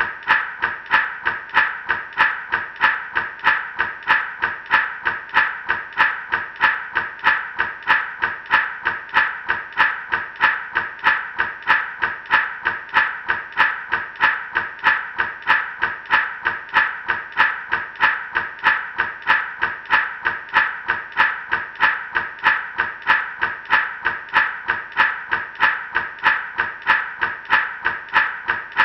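Gourd rattle shaken in a steady, even rhythm, a little over two shakes a second, the seeds inside hissing and clattering with each stroke.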